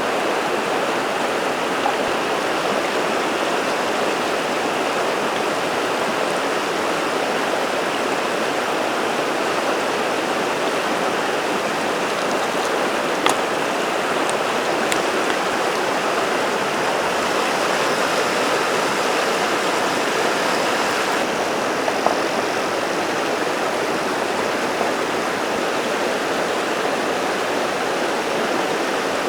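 River water flowing steadily over rocks, an even rushing sound. A few short, sharp clicks come through it around the middle.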